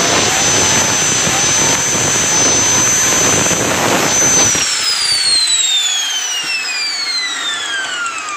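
Angle grinder working metal, a loud rasp over a steady high whine. About four and a half seconds in it is switched off, and the whine falls steadily in pitch as the disc spins down.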